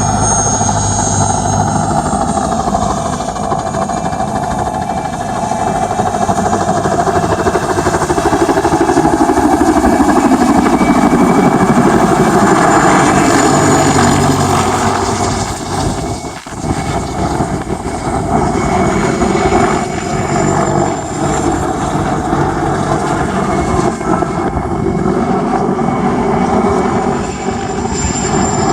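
Mil Mi-2 helicopter flying a display, its twin turboshaft engines and rotor running loud and steady. About ten seconds in, the sound sweeps down in pitch as it passes. There is a brief dip in level a little past halfway.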